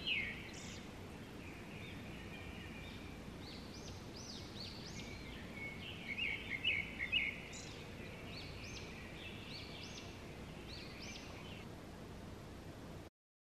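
Birds chirping in quick runs of short rising and falling notes over a steady background hiss. The sound cuts off abruptly near the end.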